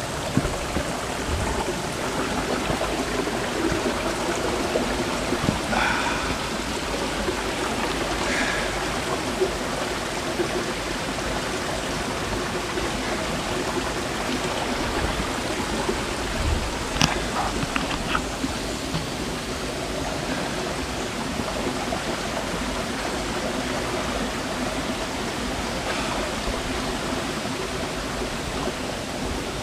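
Steady rushing of a running bush creek, with a few faint short sounds over it.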